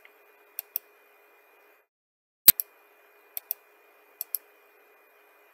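Computer mouse button clicks, mostly in quick pairs, with a louder click about two and a half seconds in.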